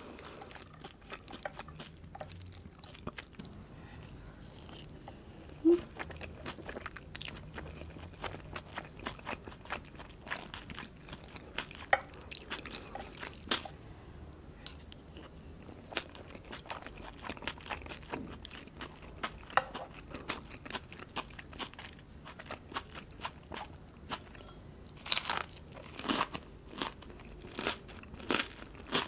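Close-miked eating sounds: chewing and crunchy bites of gyudon (beef rice bowl) and breaded fried shrimp. The crunchy clicks come thickest about twelve seconds in and again near the end.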